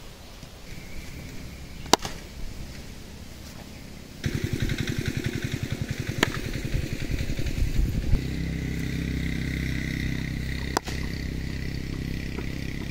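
Elevar Gully Scoop cricket bat striking a tennis ball with sharp knocks, three times about four seconds apart. From about four seconds in an engine runs under them, pulsing evenly at first and then steady.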